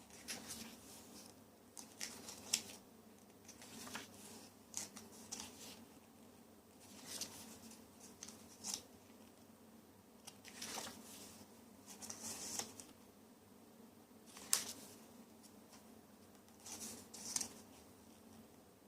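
Paper being handled: a string of irregular, brief crisp rustles and swishes, about one every second or two, with a sharper one about two-thirds of the way through.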